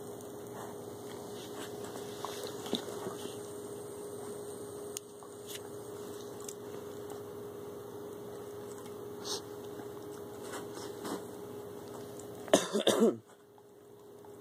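A steady low hum with scattered faint clicks, then a single short, loud cough near the end.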